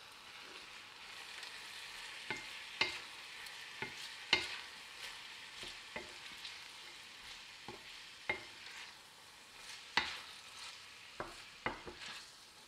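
Wooden spoon stirring and tossing spaghetti in a stainless steel frying pan, the sauce sizzling steadily underneath, with sharp irregular knocks of the spoon against the pan about once a second.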